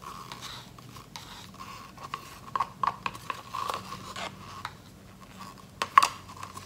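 Thin plastic cups being handled as acrylic paint is poured from one into another: soft scrapes and rubs with light plastic clicks, a sharper click about six seconds in.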